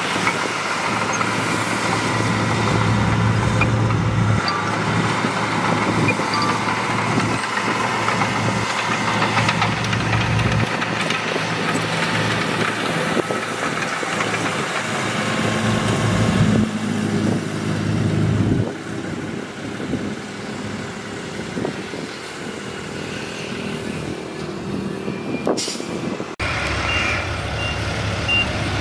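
Heavy diesel earthmoving machinery at work: a bulldozer's and dump trucks' engines running, rising and easing off with the load. Near the end a reversing alarm starts beeping.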